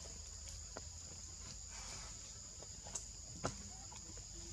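Steady high-pitched drone of forest insects, with a few faint clicks and a sharper tick about three and a half seconds in.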